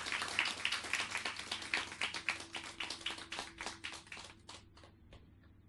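A small audience clapping, the applause thinning to a few scattered claps and dying away about five seconds in.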